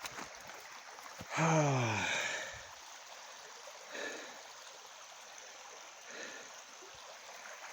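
A small stream running steadily. About a second and a half in, a man lets out one long, falling sigh, the loudest sound.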